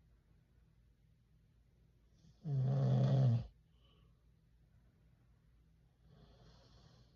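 A sleeping man snoring: one loud, low snore about a second long a couple of seconds in, then a much quieter breath near the end.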